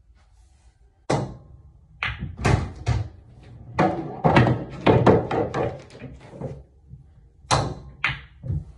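A pool cue strikes the cue ball about a second in. A run of sharp clacks and knocks follows as the pool balls hit each other and the cushions. Another sharp strike comes near the end.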